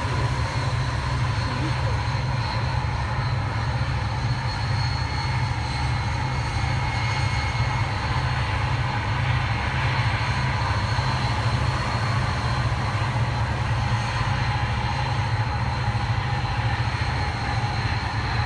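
Steady low rumble of a moving cruise riverboat heard from its open deck, mixing the ship's engines with wind on the microphone, and with faint steady whining tones above it.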